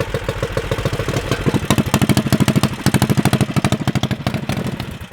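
Built Predator 420cc single-cylinder engine on an ATV running through a 2014 Ford Mustang 5.0 Coyote muffler: a rapid, even train of exhaust pulses with a deep, bassy tone, but still loud. It revs up about two seconds in, holds for a second or so, then settles back and drops away near the end.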